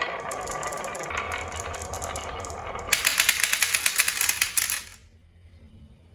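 Marbles rolling and clicking along a marble run, then a louder stretch of rapid clattering about three seconds in that cuts off suddenly, leaving near quiet.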